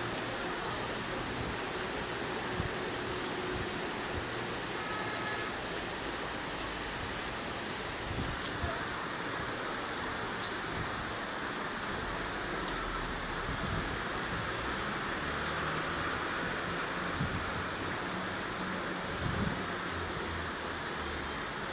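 Steady autumn rain falling, an even hiss with no letup, broken by a few soft, low bumps.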